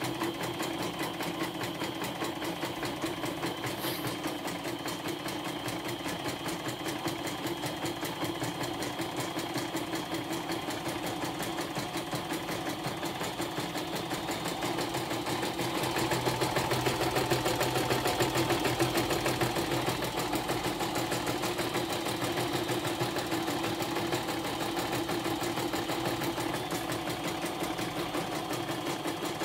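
YOKO portable computerised embroidery machine stitching a test design, the needle running in a fast, even rhythm of stitches over the motor's hum. It runs smoothly, a little louder about halfway through.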